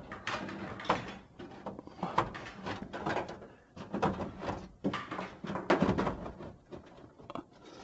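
Sheet-metal duct being pushed and worked back into place against a humidifier's housing: irregular metal scrapes, rattles and knocks, loudest about four and six seconds in.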